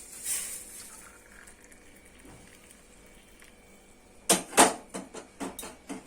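Hot kadha poured from a pan into a cup, a short splashing hiss in the first half-second. After a quiet stretch, a run of sharp clinks and knocks of kitchen utensils comes near the end, the first two the loudest.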